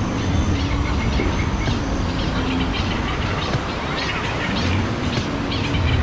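A train running by: a steady rumble with light clicks of the wheels.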